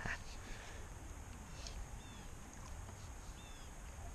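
Faint outdoor river ambience: a steady low rumble with two short, high chirps from a small bird, about two and three and a half seconds in.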